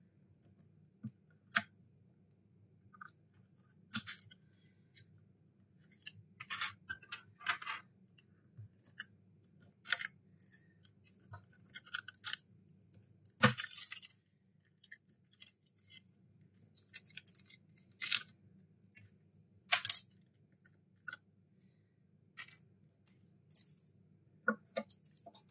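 Shards of an iPhone X's laser-treated rear glass being picked and scraped off with a metal tool: irregular sharp clicks, scrapes and small glassy clinks, some in quick clusters, with one longer scrape about thirteen seconds in. A faint steady low hum runs underneath.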